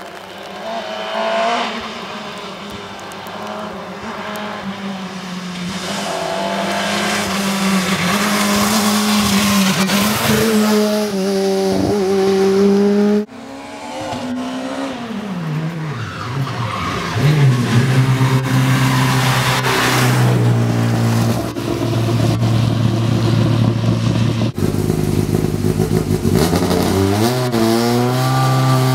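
Škoda Fabia S2000 rally car's engine at high revs on a test stage, rising in pitch and dropping back at gear changes as the car approaches and passes. Near the end it runs at low revs and then rises as the car drives up a loading ramp.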